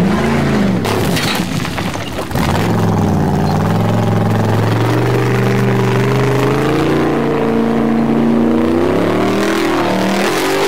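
Formula offroad buggy's engine at high revs on a steep gravel hillclimb. It revs up and down, drops briefly about two seconds in, then holds a steady high note as the car claws up the slope.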